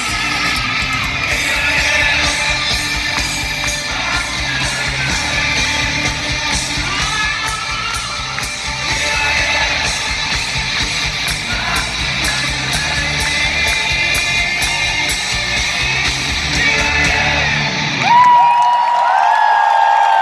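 Live hard rock band playing loudly through an arena PA: drums with steady cymbals, bass, electric guitars and vocals, with a crowd singing and shouting along. Near the end the drums and bass drop out, leaving a single held note that bends in pitch.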